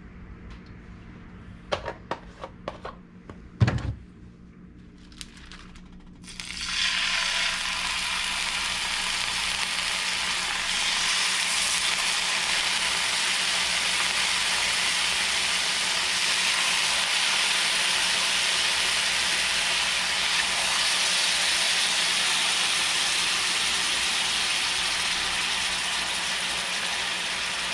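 A few clicks and a heavier knock in the first four seconds, then, about six seconds in, soy-sauce-marinated vermilion rockfish fillets start frying in a hot pan with a steady, loud sizzle.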